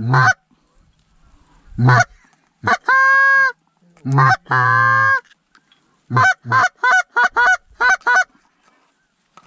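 Canada goose call blown by a hunter to work circling geese: a few single honks breaking from low to high, two drawn-out moans, then a fast run of about eight short clucks near the end.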